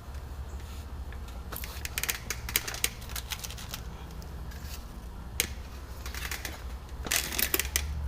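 Scattered light clicks and rattles of hand work on a truck door handle and its parts. They come in a cluster about two seconds in, a single sharp click about five seconds in, and another cluster near the end, over a low steady hum.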